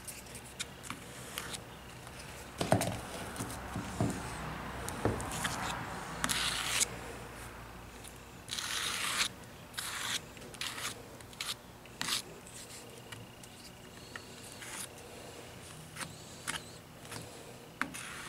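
A putty knife scraping and pressing thick joint-compound putty into HO-scale model railway track and foam, giving irregular scrapes, clicks and a few low knocks. The longest scraping strokes come about six and nine seconds in.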